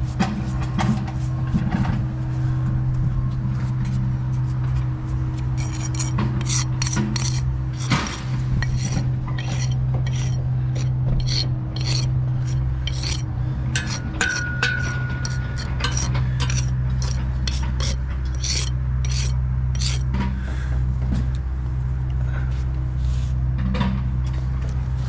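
A bricklayer's finishing tools on fresh brickwork: a metal jointer scraped along the mortar joints and a soft brush swept across the brick face, in quick repeated scraping strokes that come thickest in the middle. A steady low hum runs underneath.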